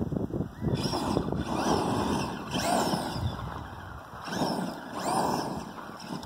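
Traxxas E-Revo electric RC truck driving in three bursts on gravel, its motor whining up and down in pitch as the tyres spin and crunch on the stones. Its rear driveshaft is broken, so it struggles to get away.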